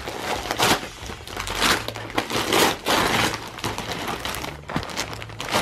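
Christmas wrapping paper being torn open and crumpled by hand as a present is unwrapped, in a series of quick rips and crinkles.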